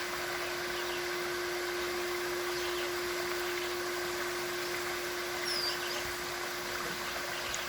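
Crystal singing bowl holding one steady tone over the even rush of a flowing stream, with a bird chirping briefly about five and a half seconds in.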